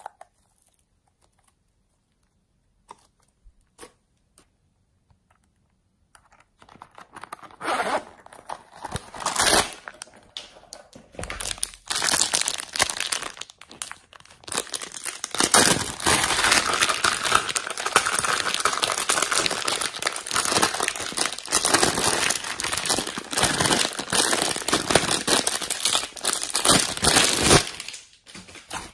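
Slime being squeezed and pressed by hand, with dense crinkly crackling. After several seconds of near quiet with a few faint clicks, the crackling starts, grows louder and keeps up, then stops just before the end.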